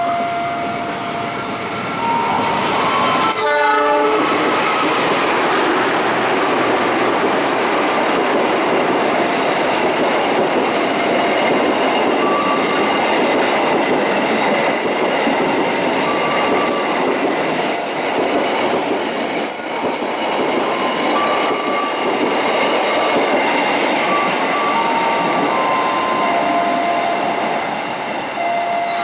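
Diesel-electric locomotive's horn sounds briefly about three and a half seconds in, then a long passenger train passes close by: a steady rumble of wheels on rail with clickety-clack over the joints and a thin high wheel squeal.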